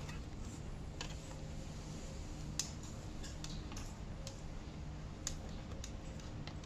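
A handful of small scattered clicks and snaps of a plastic housing being pried apart by hand, over a faint steady low hum.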